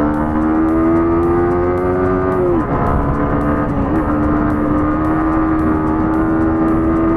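Yamaha R15's single-cylinder engine running at steady cruising revs under wind rush. Its pitch creeps up, drops briefly about two and a half seconds in, then holds steady.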